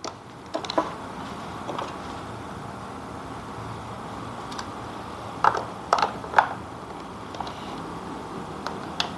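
Plastic clicks and knocks from a Huina remote-control toy excavator's battery compartment as a battery pack is fitted and pressed into place, with a cluster of three louder clicks about halfway through, over a steady low hiss.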